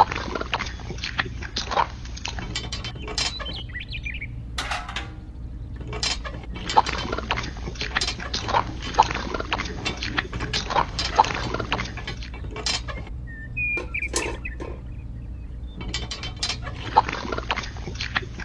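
A small homemade model machine running: a steady low motor hum under rapid, irregular clicking and clinking of small parts, which thins out twice. A short high chirp comes about three-quarters of the way through.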